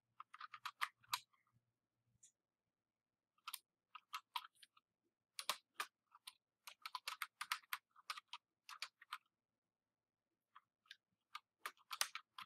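Computer keyboard typing: irregular runs of key clicks with pauses of a second or two between runs.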